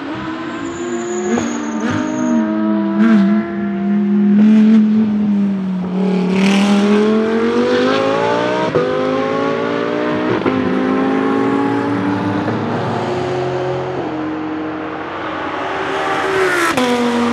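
Audi R8 LMS GT2's 5.2-litre V10 race engine on track: early on it steps down in pitch through downshifts under braking, with several sharp cracks, then climbs as it accelerates up through the gears before running at a more even pitch.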